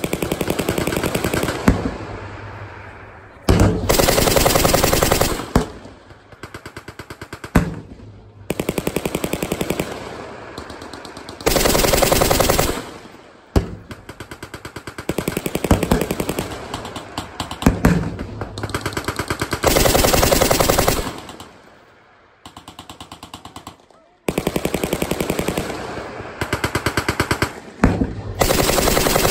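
Machine guns firing overhead in repeated bursts of automatic fire, each lasting a second or two, with fainter rattling fire and echo between the louder bursts.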